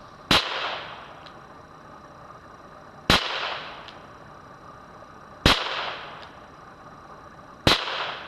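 Four shots from a J.C. Higgins Ranger .22 revolver, fired slowly, about two and a half seconds apart. Each is a sharp crack that trails off in a short echo.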